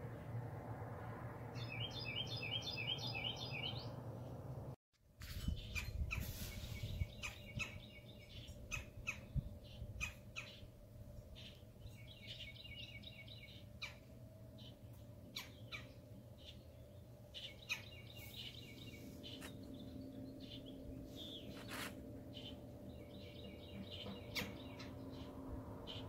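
Red-bellied woodpecker calling: four short rolling series of rapid, evenly repeated notes, each lasting one to two seconds. Sharp scattered clicks come in after about five seconds.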